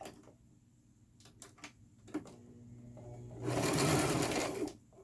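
Electric sewing machine stitching through doubled hair weft tracks in a short run of about a second, about three and a half seconds in, after a quieter stretch with a few light clicks.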